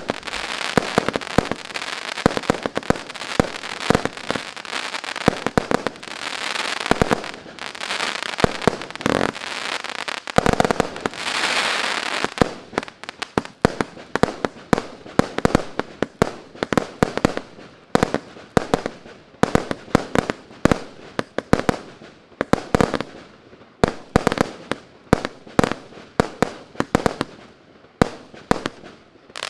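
A 200-shot fireworks cake of 0.8-inch (20 mm) tubes firing in rapid succession, several sharp shots a second. For the first dozen seconds the shots sit over a dense crackling hiss; after that they come more separately.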